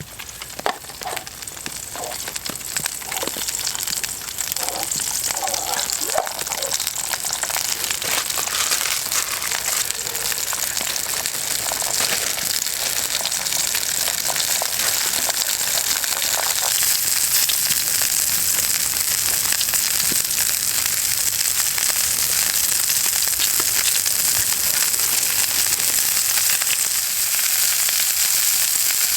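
Food sizzling on a titanium camping plate used as a frying pan. The sizzle grows louder over the first quarter of a minute or so, then holds steady. There are a few light knocks in the first several seconds.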